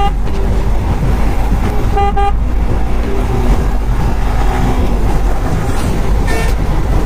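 Heavy wind noise on a motorcycle rider's helmet microphone at highway speed, with the bike's engine running under it. Two short vehicle horn toots sound, one about two seconds in and one near the end.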